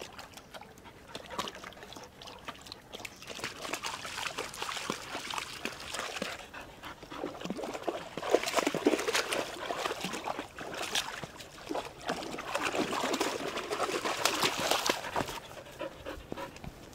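Dogs wading through a shallow pond, water splashing and sloshing around their legs. It builds a few seconds in, is loudest through the middle and latter part, and eases near the end.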